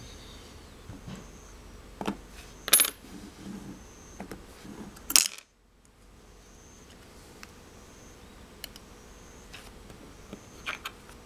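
Thin metal figures of a magnetic toy clicking and clinking as they are handled and snapped onto the magnetic base and onto each other. There are a few sharp metallic clicks, the loudest about five seconds in, then lighter ticks near the end.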